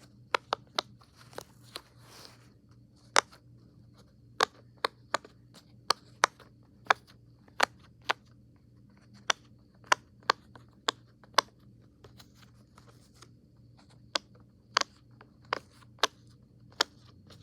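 Rainbow silicone pop-it fidget being pressed bubble by bubble: a string of sharp pops, about two a second and unevenly spaced.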